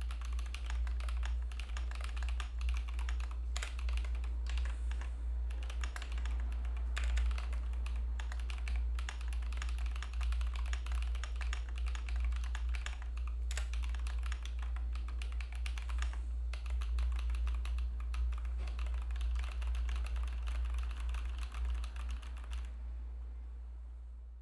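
Continuous typing on a computer keyboard, a dense run of key clicks that stops shortly before the end, picked up by a Fifine T683 USB cardioid microphone set to about half volume. A steady low hum sits underneath.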